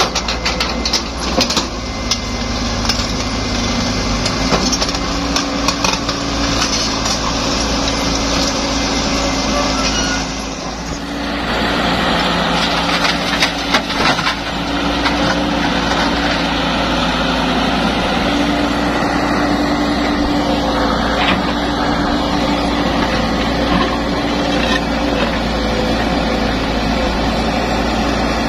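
Caterpillar E120B hydraulic excavator's diesel engine running steadily under working load as it digs and loads earth and rock into a dump truck, with scattered knocks and clatter of rock. The sound dips briefly about eleven seconds in, then carries on.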